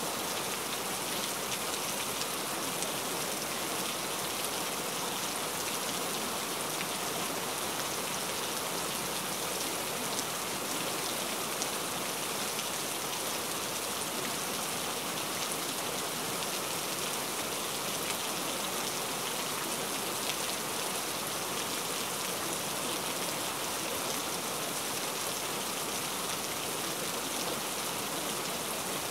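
Steady rain sound: an even, unbroken hiss of falling rain, used as the cover track of a subliminal recording.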